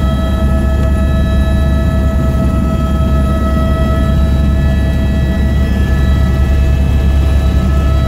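Helicopter in flight heard from inside the cabin: a loud, steady low drone of the rotor and engine with a steady high-pitched whine laid over it.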